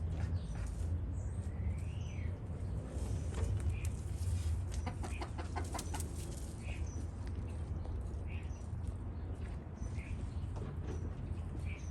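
Backyard chickens clucking: a quick run of clucks about five seconds in, with short high chirps and calls scattered throughout, over a steady low rumble.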